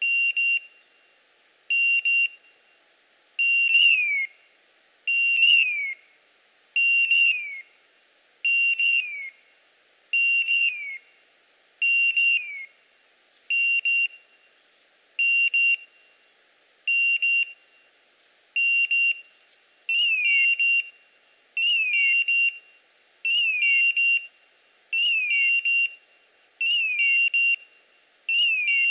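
Dog's beeper collar beeping at an even pace, one high steady beep roughly every second and a half to two seconds, several of them carrying a downward-sliding tone. This is the beeper's point signal, sounding while the setter stands still holding point on partridge.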